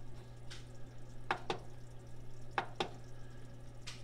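Short sharp clicks from the control of a countertop toaster oven as the time is set, coming mostly in pairs, over a steady low hum.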